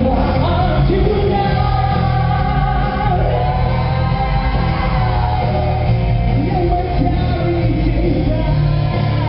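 Live band music with singing: sung lines held and sliding over a steady bass and band accompaniment.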